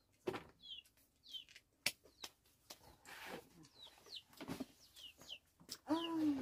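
Birds chirping, short falling chirps repeated every second or so, among light knocks and a rustle as pomelo pieces are handled in a plastic basin. Near the end a louder, low call falls in pitch.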